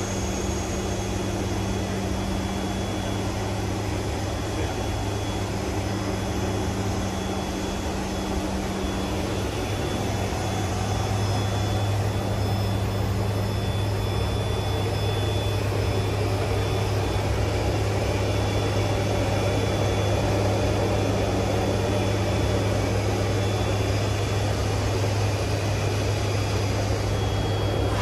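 C-130J's four turboprop engines and propellers heard from inside the flight deck: a steady low drone with a constant deep hum, getting slightly louder about a third of the way in.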